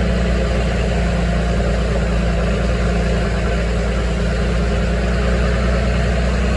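Vehicle engine running steadily, with a steady rushing noise over it.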